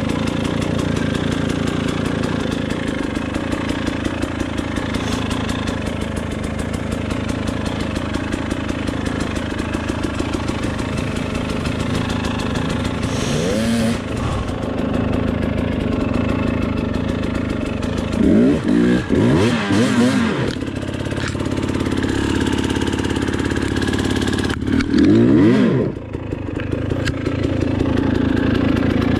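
Enduro dirt bike engine idling steadily, revved up and back down in short bursts a little before halfway, about two-thirds in, and again near the end.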